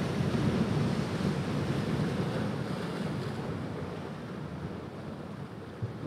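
Ocean surf breaking and washing up a sandy beach: a steady rushing wash, loudest in the first few seconds, that then slowly recedes and grows quieter.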